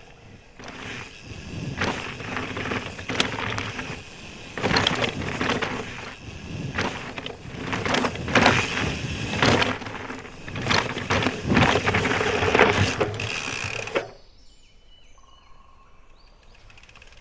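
Full-suspension mountain bike riding fast down a dirt trail: tyres crunching over dirt and roots, with irregular knocks and rattles from the bike. About fourteen seconds in it cuts to quiet forest ambience with faint bird chirps.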